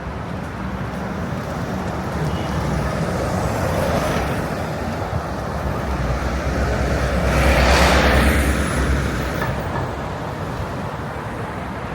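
Busy city street traffic with vehicles passing. A heavy vehicle with a deep engine rumble passes close about eight seconds in, the loudest moment.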